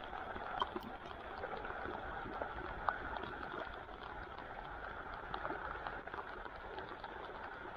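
Steady sound of moving water in a creek, with a few short ticks scattered on top.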